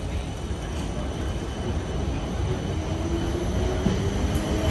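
British Rail Class 455 electric multiple unit pulling away: a low rumble from the wheels and running gear, growing louder, with a faint motor whine rising near the end.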